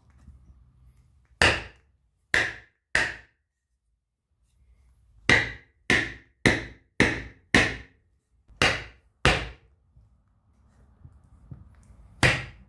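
Hammer striking a wooden block set on a riding lawn mower tire's sidewall, sharp knocks in groups: three, then five in quick succession, then two, and one more near the end. Each blow drives the tire's bead off the rim.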